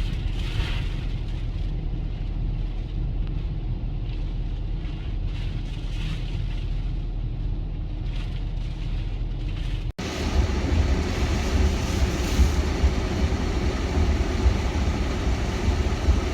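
Hurricane wind rumbling on the microphone with a steady low roar. About ten seconds in the sound cuts to a louder stretch with more hiss over the rumble.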